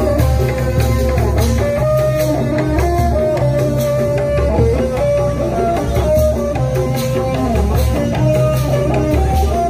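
Loud music with a strong, steady bass, a melody line moving from note to note, and percussion.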